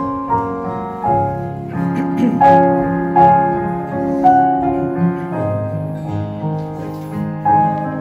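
Piano and acoustic guitar playing a slow hymn, with sustained chords changing every second or so.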